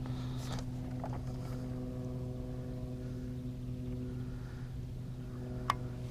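Steady low electric hum with a few fainter higher tones, from an electric trolling motor running at constant speed. A single sharp click near the end.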